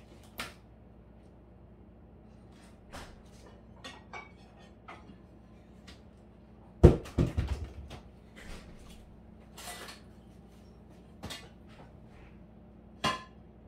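Kitchen clatter of dishes and utensils: scattered light clicks and knocks, a loud run of several clattering knocks about seven seconds in, and one sharp knock near the end.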